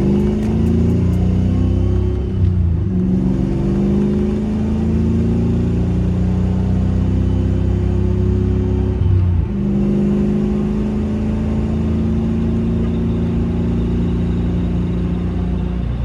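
Fox-body Ford Mustang's engine pulling through the gears of its T5 manual transmission under acceleration. The revs climb, fall with an upshift about two and a half seconds in, climb again, fall with a second upshift about nine seconds in, then hold steady.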